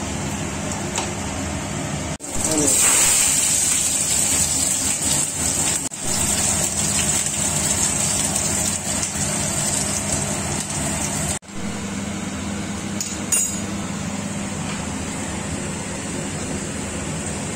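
Chopped onion sizzling in hot mustard oil and ghee in a stainless steel kadai, loudest just after two seconds in, with a wooden spatula stirring and knocking on the pan now and then. A steady low hum runs underneath.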